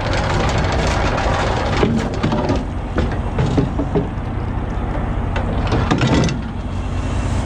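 Anchor chain rattling over a boat's bow roller as the anchor is hauled up, with several sharp metal knocks as the chain and anchor strike the roller fitting. Underneath, the boat's diesel engine drones steadily.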